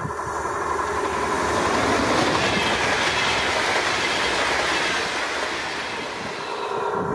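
DB Intercity 2 double-deck electric passenger train passing at speed: wheel-and-rail noise that swells as it comes close, stays loud while the coaches run by, and dies away near the end.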